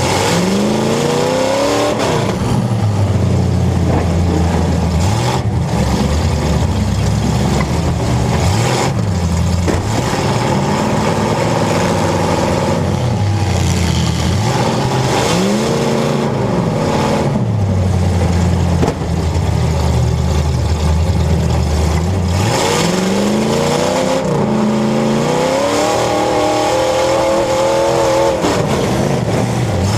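Demolition derby cars' engines revving hard, the pitch climbing and dropping back again and again every few seconds, loud.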